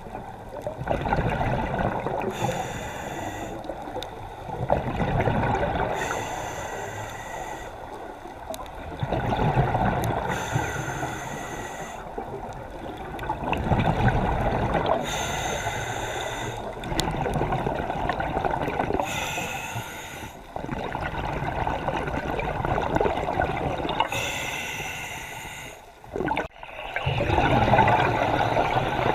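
Water sloshing and gurgling around the camera, with a spearfisher's breathing through a snorkel swelling and fading about every four seconds. Near the end the sound drops out briefly, then returns loudly.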